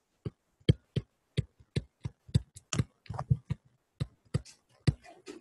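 Stylus tapping and clicking on a tablet screen during handwriting: a string of irregular short clicks.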